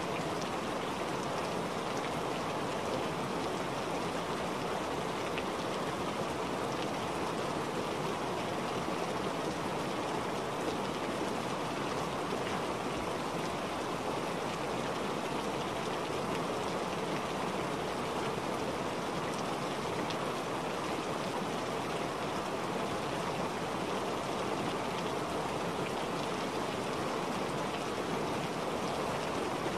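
Recorded rain ambience: a steady, even hiss of falling rain with no breaks or changes, used as the calm background track of a subliminal recording.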